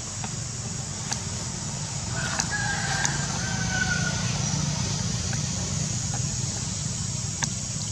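One long animal call, a little over a second long, about two seconds in. It sits over a steady low hum and a high, even insect drone, with a few faint clicks.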